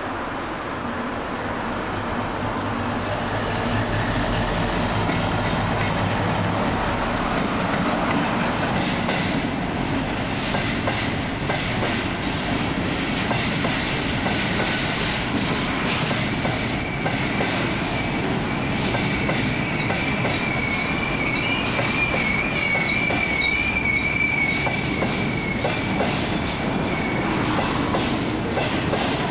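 Class 60 diesel locomotive with a train of empty limestone hopper wagons rolling past. The locomotive's engine hums in the first few seconds, then the wagons' wheels click and rattle over the rail joints. About halfway through, a high wheel squeal sets in and holds for about ten seconds, fading near the end.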